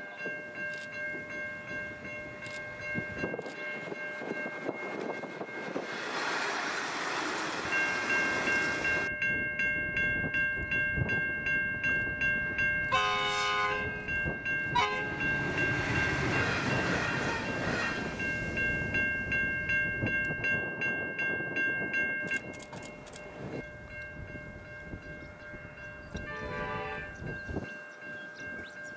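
Two-car V/Line Sprinter diesel railcar set running past, its engines and wheels loud as it passes, with a short horn blast about halfway through and a steady high-pitched ringing in the middle part that stops suddenly. Near the end a Pacific National freight train led by NR-class diesel locomotives sounds a short horn blast as it approaches.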